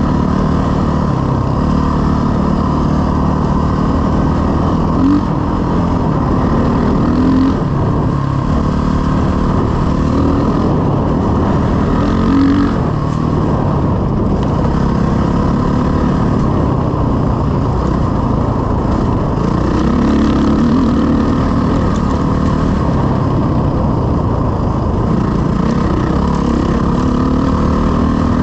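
Dirt bike engine running hard under way on a dirt trail, close up from the bike, its revs rising and falling with the throttle and gear changes.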